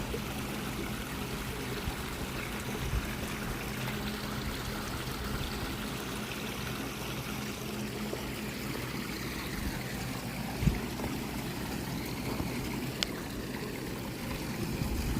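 Steady trickle of running water with a low, steady hum under it; a dull thump about ten and a half seconds in and a sharp click near thirteen seconds.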